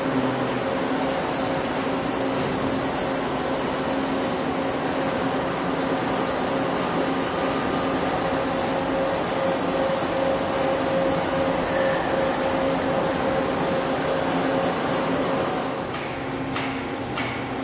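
Doosan Puma 2000SY CNC lathe running, a steady multi-toned motor and drive whine with a high whistle that breaks off briefly now and then as the turret and sub-spindle axes move. Near the end the whine drops away and a few sharp clicks follow.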